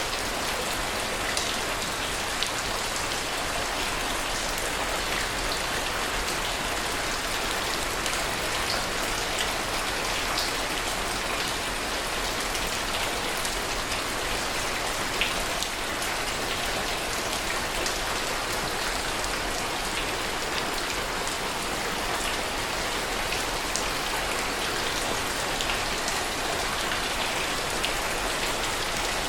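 Heavy rain falling steadily, a dense even hiss with scattered sharp ticks of single drops striking close by.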